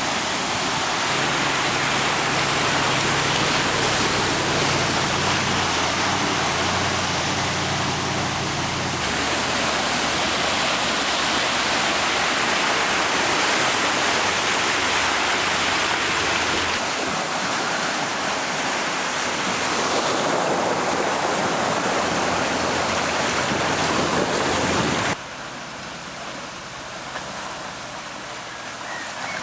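2014 Range Rover Sport driving off-road: a loud, steady rushing noise with a low engine hum under it for the first several seconds. The sound changes abruptly a few times, as at cuts between shots, and is quieter for the last few seconds.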